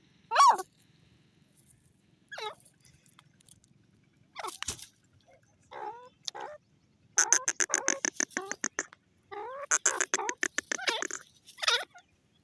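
Grey francolin calling: a few scattered short notes, then two fast runs of harsh, evenly repeated notes, about eight or nine a second, in the second half.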